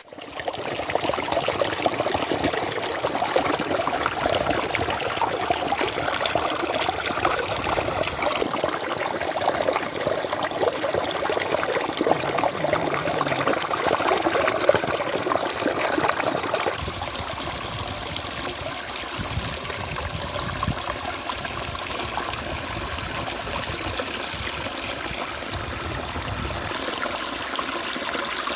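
Stream water running, a steady rush of water with no break; it drops a little in level from about 17 seconds in.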